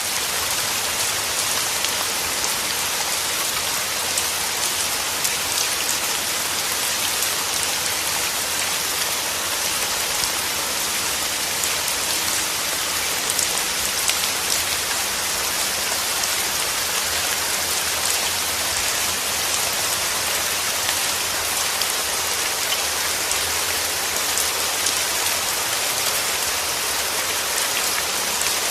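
Steady rain falling on a surface: a dense, even hiss with fine ticks of individual drops.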